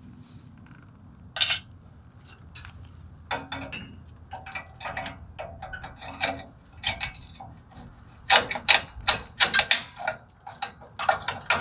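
Small metal brake hardware and hand tools clicking and clinking as the parking brake shoes' hold-down pins and retaining spring clips are worked loose. The clicks come one at a time at first and grow into a dense clatter about two-thirds of the way in.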